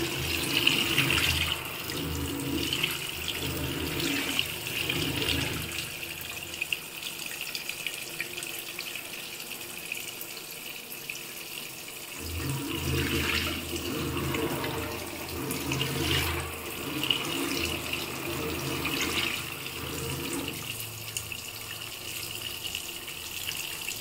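Tap water streaming from the inlet of an LG top-load fully automatic washing machine into its tub and splashing onto wet laundry as the machine fills. A steady splashing hiss, with a low rumble that comes in for the first few seconds and again in the middle.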